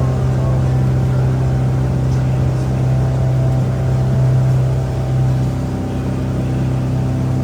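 Riverboat's engine running at a steady cruise, a constant low drone, heard from on board.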